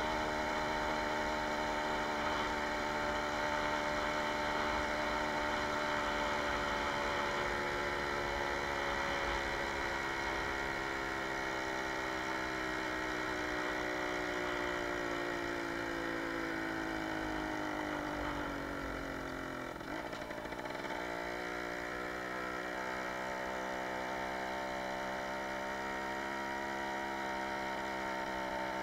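Jawa 20 Pionýr moped's single-cylinder two-stroke engine running under way. Its revs sink slowly, the sound breaks off for a moment about twenty seconds in, and then it carries on at higher revs, rising slowly.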